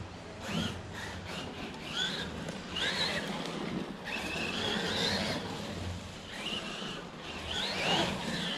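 Traxxas Maxx 4S electric RC monster truck driving on grass: its brushless motor whine rises and falls several times with the throttle, over a steady rushing noise.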